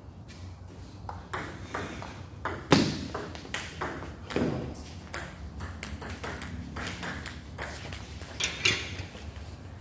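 Table tennis rally: the ball clicks sharply off the paddles and bounces on the table in an irregular run of quick hits, the loudest near three seconds in.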